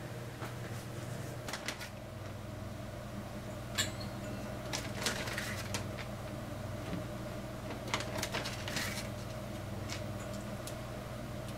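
Tongs and shredded cabbage clicking and rustling against stainless steel bowls and a plastic bag, in short scattered bursts, over a steady low hum.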